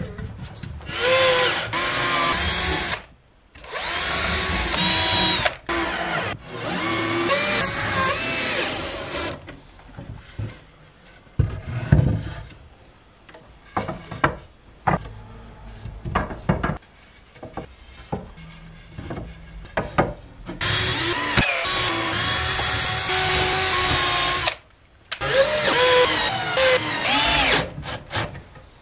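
Cordless drill-driver running in runs of a couple of seconds, a whining motor driving wood screws into wooden boards, three runs early and two near the end. In between, wooden boards knock as they are handled.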